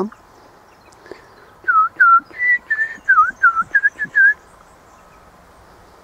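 A clear whistled phrase of about nine or ten short, slurred notes, some dipping and rising in pitch, lasting a little under three seconds and starting a second and a half in.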